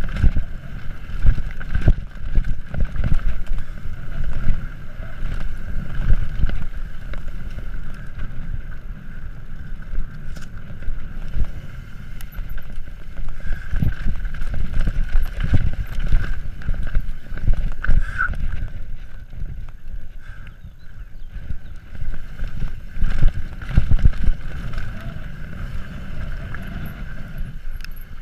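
A mountain bike rides fast over a rough dirt trail. Its tyres and frame rumble and rattle, with frequent irregular jolts and knocks, and wind buffets the microphone.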